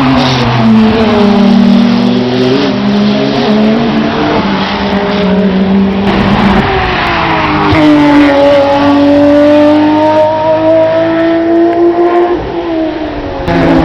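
Race car engines passing at speed, their notes held high under throttle and falling in pitch as each car goes by. There is a brief lull about twelve seconds in before the next car arrives.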